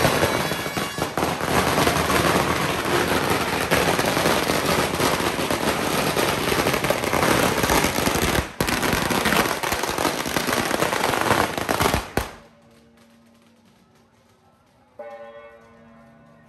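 A long string of firecrackers going off in a rapid, dense crackle, with a brief break near the middle, that cuts off suddenly about twelve seconds in. After that it is much quieter, with a faint pitched sound near the end.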